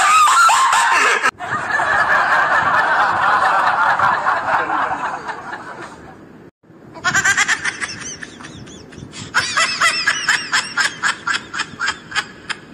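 Laughter sound effects, several short clips cut one after another. The later clip is a person laughing in quick, repeated ha-ha pulses that fade away near the end.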